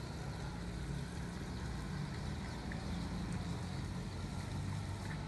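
Water from a hose running and splashing onto wet ground while an elephant is washed, over a steady low mechanical hum.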